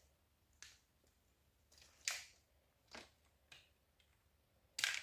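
Faint handling noises from hands working on parts of an electric dirt bike: about five scattered clicks and rustles, the loudest near the end.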